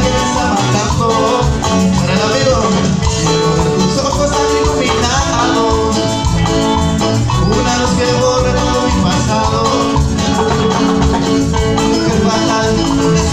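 Live cumbia band playing loudly: voices singing over electric guitar, keyboard and drums, with a steady dance beat.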